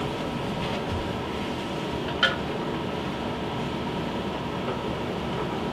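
Steady room hum, with one light click about two seconds in.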